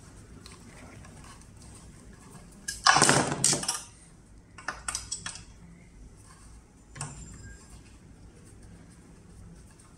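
Metal clinks and clatter from a T-handle hex key handled against the scooter's deck and screws, with one loud clatter about three seconds in and a few lighter clicks after.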